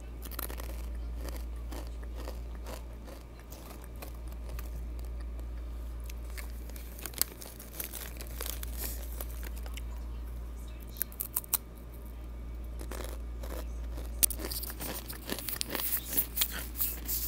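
Takis rolled tortilla chips being crunched and the snack bag crinkling close to an earphone microphone, in scattered sharp crackles that thicken into a dense run near the end, over a steady low hum.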